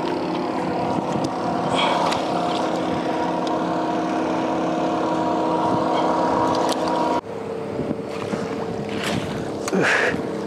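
A boat motor running steadily, its hum stopping abruptly about seven seconds in and giving way to a fainter, different steady hum. Near the end, water splashes as a hooked black sea bream is lifted out in a landing net.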